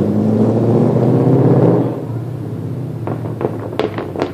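Cammed 2014 Ford Mustang GT 5.0 V8 with long-tube headers and loud axle-back exhaust, its engine rumble swelling to a peak and then dropping off sharply about two seconds in as the throttle comes off. Several sharp cracks follow near the end.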